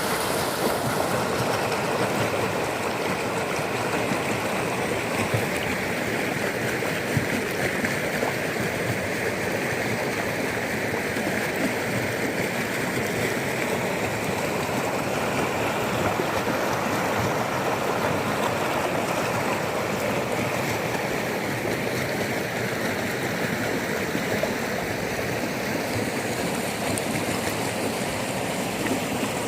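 Fast-flowing floodwater rushing steadily, an even churning wash of water.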